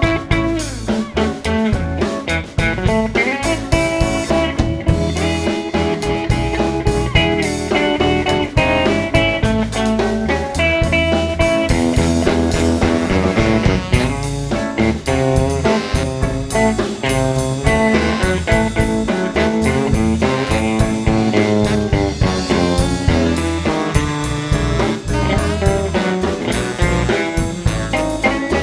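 Live R&B band playing an instrumental break with no vocals: electric guitar to the fore over bass and drum kit, in a bluesy groove.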